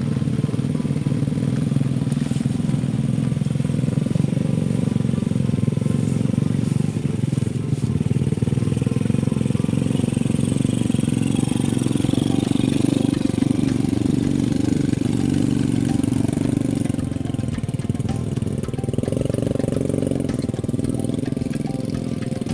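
Small motorcycle engines running as bikes laden with sacks of corn labour along a muddy dirt track, getting louder in the middle as one passes close by and easing off a little near the end.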